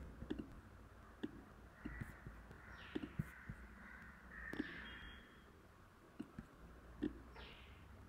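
Faint, scattered computer-mouse clicks as a diagram is drawn. In the background, faint harsh animal calls come and go between about two and five seconds in.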